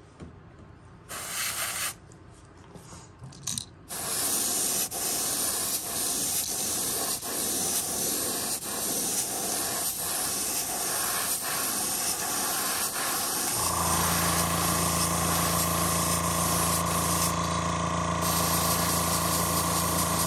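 Airbrush spraying paint: two short bursts of hiss, then a longer, pulsing spray as the trigger is worked. About two-thirds of the way through, a motor starts a steady hum underneath the spray.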